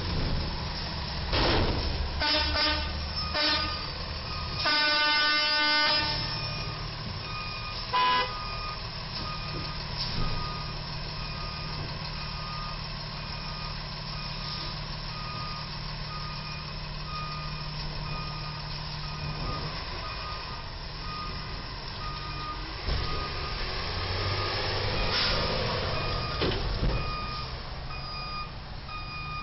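Vehicle horns honking several times in the first few seconds, one honk held about a second. Then a box truck's reversing alarm beeps steadily as the truck backs away from the low bridge, over the rumble of truck engines and traffic.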